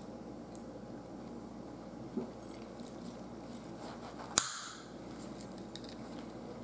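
One sharp snip about four and a half seconds in as fishing pliers' cutters clip through a swimbait head's metal centering pin, with a fainter click from the pliers about two seconds in.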